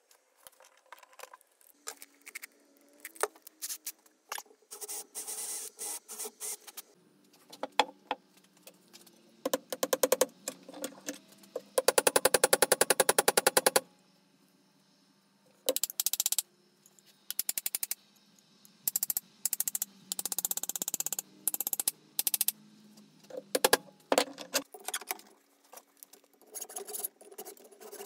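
Hand-tool work at a wooden workbench: intermittent scraping, rubbing and clicks, with a loud, very rapid run of knocks lasting about two seconds midway.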